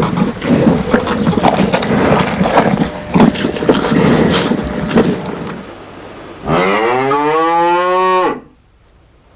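Jumbled knocking and clattering noise for the first five seconds or so. About six and a half seconds in, a cow moos once: a long call of nearly two seconds that rises in pitch, then holds, and ends abruptly.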